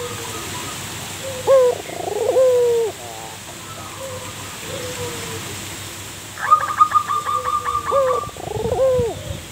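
Zebra dove (perkutut) cooing: a couple of bending coos, then after a pause a rapid stuttering run of about a dozen short notes, roughly seven a second, ending in another coo. Fainter coos sound in between.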